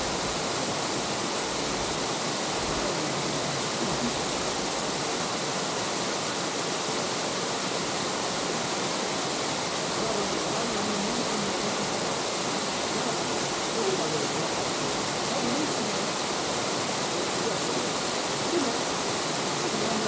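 Small waterfall spilling over a rock ledge into a pool: a steady rush of falling water.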